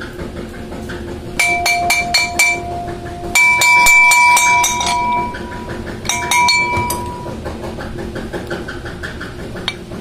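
Hammer blows on the steel parts of a pump motor being taken apart to free its rotor and noisy bearing: ringing metallic clinks in three quick bursts of several strikes each, the middle burst the loudest. A steady low machine hum runs underneath.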